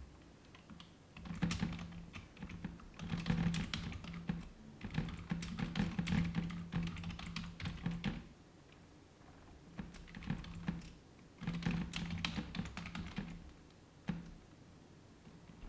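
Typing on a computer keyboard: quick runs of keystrokes broken by pauses of a second or two.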